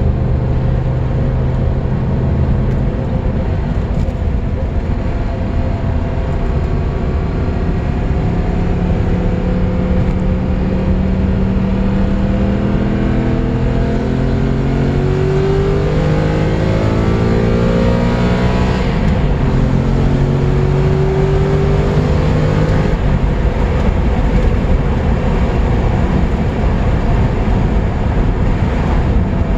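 Ferrari-built 2.9-litre V8 of a Lancia Thema 8.32 under way, its note climbing steadily in pitch for about ten seconds, then dropping sharply and running steady for a few seconds. Near the end the engine note fades into a steady road and wind rumble.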